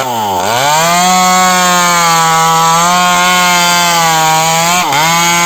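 A power tool's motor running hard at a steady pitch, with its speed dipping briefly just after the start and again about five seconds in, as it takes load in wood.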